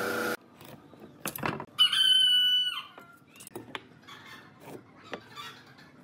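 A knock, then a loud high squeal lasting about a second that drops in pitch at its end. Pencil strokes scratch along a pine board against a steel speed square.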